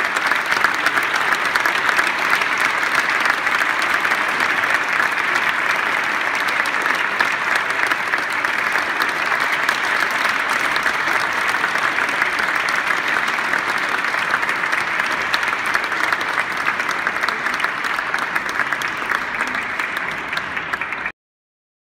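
Concert audience applauding, a dense steady patter of clapping that cuts off suddenly near the end.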